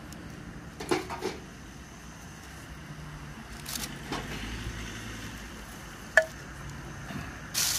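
Wood being laid on a small fire in a metal fire box: a few knocks and scrapes of sticks against wood and metal, with one sharp clink about six seconds in.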